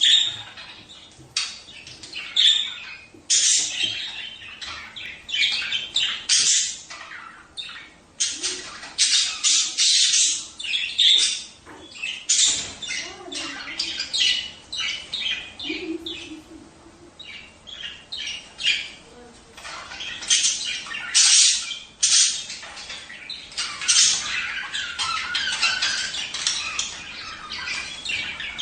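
Budgerigars chattering and squawking, a dense run of quick high chirps and warbles with brief pauses.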